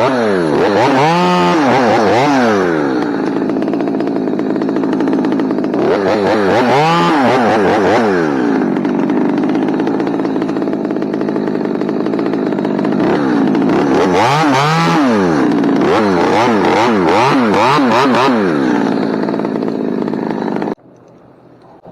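Chainsaw running and cutting a small branch tip, its engine revving up and down about a second in, again around seven seconds, and in a quick series of revs later on, then cutting off suddenly near the end.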